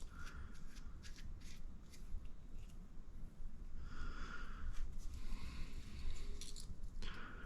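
Small handling sounds of a cap being screwed onto an oil-filled RC buggy shock body: light clicks and scrapes scattered throughout, with three soft breaths.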